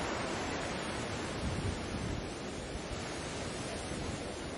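Baltic Sea waves washing ashore: a steady surf hiss, swelling slightly about a second and a half in.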